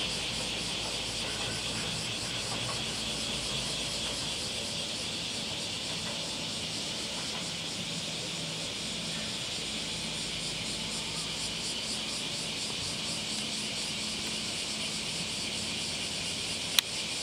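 Insects chirring steadily: a high, fast-fluttering hiss over a faint low background hum, with one sharp click near the end.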